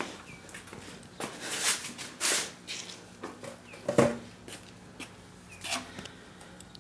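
Handling noises as a wheel and tire are worked on a bathroom scale: a few short scuffs and rustles, and a knock about four seconds in.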